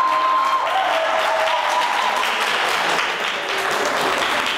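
Audience applauding steadily, with one voice calling out in a drawn-out tone over the clapping for the first couple of seconds.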